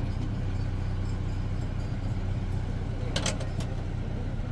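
Pickup truck engine idling with a steady low hum, with a couple of sharp clicks a little after three seconds in.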